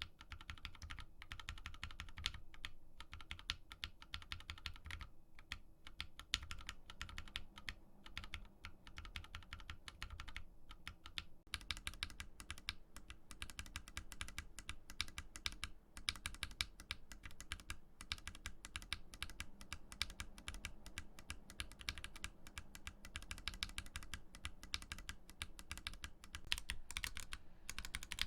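Custom-built mechanical keyboard being typed on: a fast, continuous clatter of key clicks, which gets brighter about eleven seconds in.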